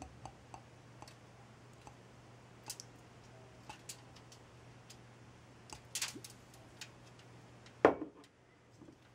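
Faint scattered clicks and ticks from a small glass bottle of balsamic vinegar being handled and shaken over meat on a foil-lined roasting pan, then one sharper knock near the end as the bottle is set down on the counter.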